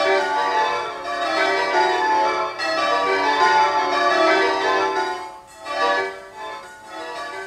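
Many bell-like tones ringing together at different pitches in a dense, sustained wash. It drops away about five and a half seconds in, swells briefly, then thins out.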